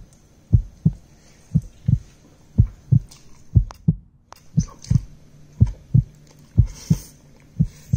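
Heartbeat sound effect: a steady lub-dub double thump about once a second.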